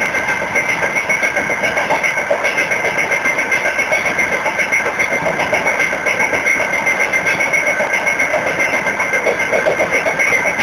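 Freight train running along the rails, heard from aboard: a steady rumble and rattle of the wheels with a constant high tone over it.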